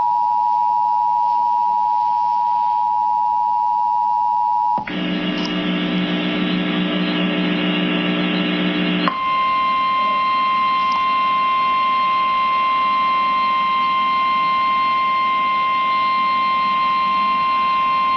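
Emergency Alert System attention tones from a broadcast alert. A steady two-tone attention signal cuts off about five seconds in to a harsher, buzzy chord of many tones, which after about four seconds gives way to one steady high tone that holds to the end.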